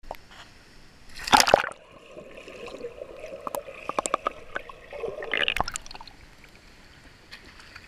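A child jumps feet-first into a swimming pool with one loud splash about a second in. This is followed by muffled underwater bubbling and small clicks, and a second burst of splashing about five seconds in as the child surfaces.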